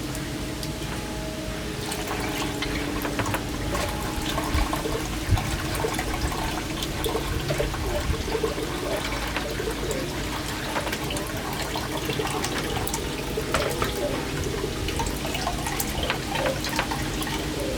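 Water running and splashing steadily, with scattered small clicks and knocks.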